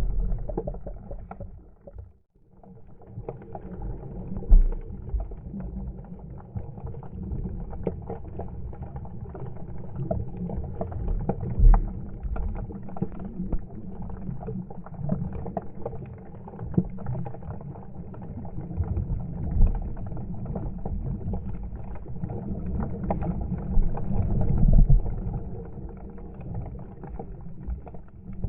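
Muffled sloshing and splashing of sea water at a GoPro 7 Black's microphone, with occasional sharp knocks and thumps.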